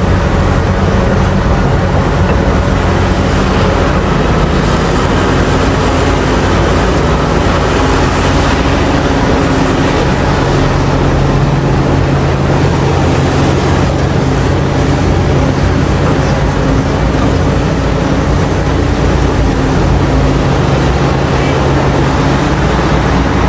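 Heavy diesel engine of a large hydraulic mining excavator running steadily under load. Its engine note shifts about halfway through.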